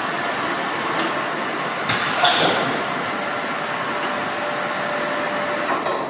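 Steady machinery noise of a helicopter assembly hall, with a few sharp metallic knocks in the first half and a faint steady whine later on.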